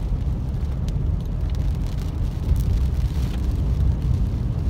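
Steady low rumble inside a car driving on a wet road, the engine and tyres running on wet pavement, with a few faint ticks.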